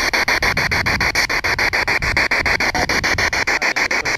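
Spirit box (radio-sweep ghost box) scanning rapidly through radio frequencies: a steady stream of chopped static, about a dozen bursts a second, through its small speaker.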